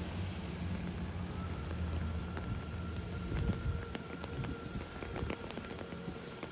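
Steady rain, with scattered sharp drops ticking close by. A low rumble fades out about halfway through, and a faint steady high tone comes in about a second in.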